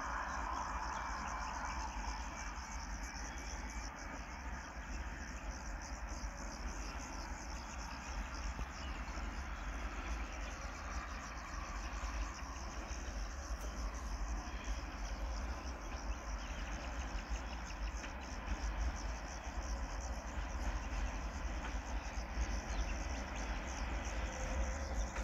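Crickets chirping in a steady high trill over a steady low rumble, with a distant train approaching faintly and growing slightly louder near the end.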